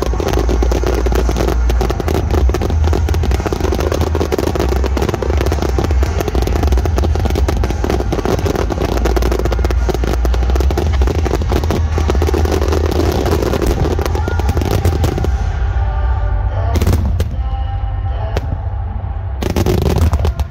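Fireworks finale barrage: rapid bangs and crackling packed tightly together over loud music with a heavy bass. About fifteen seconds in, the barrage thins, and two big bursts come near the end.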